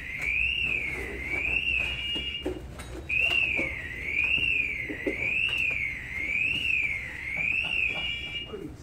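Firefighter's PASS (personal alert safety system) alarm sounding: a high electronic tone sweeping up and down about once a second, breaking off briefly twice. Scattered knocks of gear and movement on the floor underneath.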